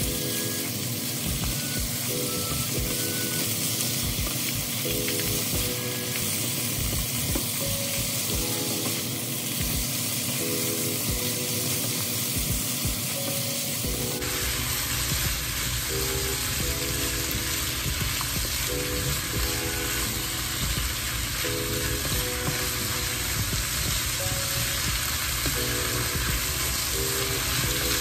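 Chicken and mixed vegetables sizzling as they sauté in hot oil in a frying pan, stirred and turned with a wooden spoon.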